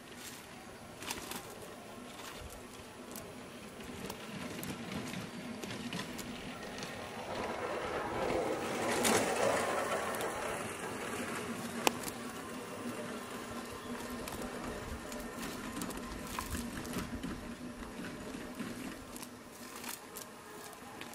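Nylon cast net rustling and its weighted rim rattling as it is pulled open on grass, with caught fish flapping against the ground. The handling is loudest about eight to ten seconds in, with a single sharp click a couple of seconds later.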